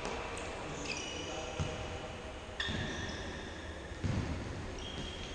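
Sneakers squeaking on the sports-hall floor as futsal players move, with a few short high squeaks at a time, and several thuds of the ball being struck, at about one and a half, two and a half and four seconds in, echoing in a large hall.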